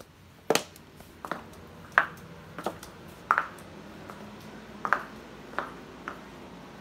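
Footsteps in clogs clacking on a hard tiled floor, a sharp click every two-thirds of a second or so, with a pause of about a second and a half around the middle.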